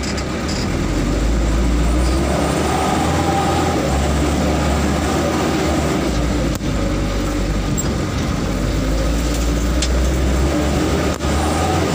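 Off-road vehicle driving along a rough dirt track: a steady low engine drone with rumble and rattling, broken by a knock about six and a half seconds in and another near the end as it jolts over the ruts.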